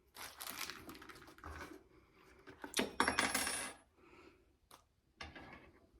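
Small metal mounting screws and hardware clinking and rattling as they are handled, in three short bursts, the middle one the loudest.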